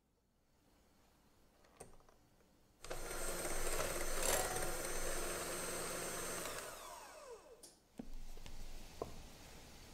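Electric hand mixer beating egg yolks in a glass bowl: it switches on about three seconds in, runs steadily for about four seconds, then spins down with a falling whine as it is switched off.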